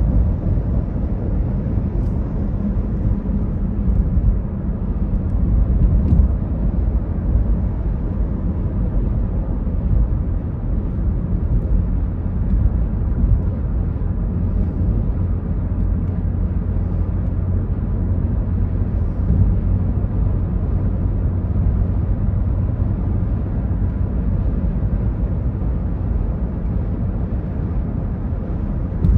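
Steady low rumble of a car's tyres and engine at highway speed, heard from inside the car.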